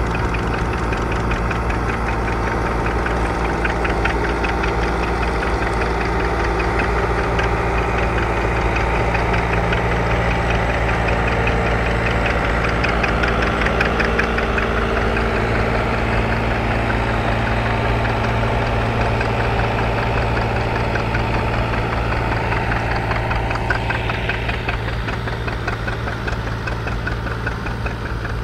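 Farm tractor engine running steadily with an even, unchanging hum.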